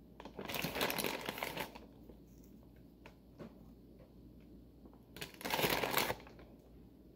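Clear plastic bag crinkling as a hand rummages in it for small cookies, in two bursts: one near the start and a shorter one about five seconds in, with faint clicks between.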